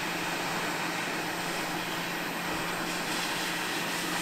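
Quick 861DW hot air rework station blowing a steady rush of hot air from its nozzle at an airflow setting of about 70, with a low steady hum under it, melting the solder under a small surface-mount component so it can be lifted off the board.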